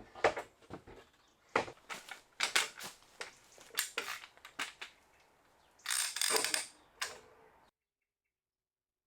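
Telescopic support prop being fitted and adjusted under a mitre saw station's extension wing: a run of irregular light clicks and knocks, a brief scraping noise about six seconds in, and one last click.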